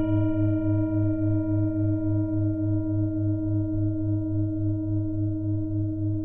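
A single struck bell-like tone ringing on, with a steady wobble of about five pulses a second in its low hum, slowly fading.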